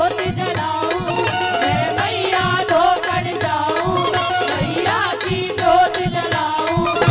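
Live Haryanvi folk bhajan: a woman singing over a steady hand-drum beat and a held melody line.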